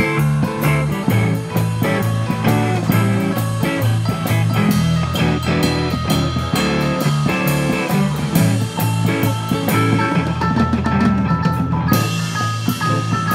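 Live band playing rock music: drum kit keeping a steady beat, electric guitars, keyboard and a low bass line. A cymbal crash comes in near the end.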